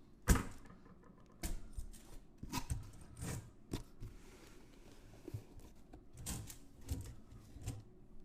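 Handling noise while unpacking bags of silver coins from a box: a sharp knock about a third of a second in, then scattered softer knocks and clicks.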